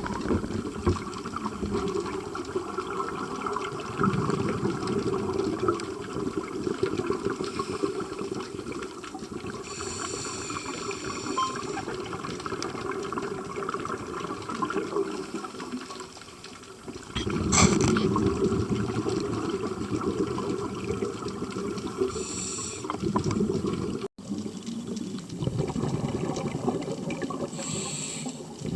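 Underwater scuba breathing: exhaled bubbles from the diver's regulator bubbling and rumbling in surges, with short hisses of the regulator on the inhale a few times.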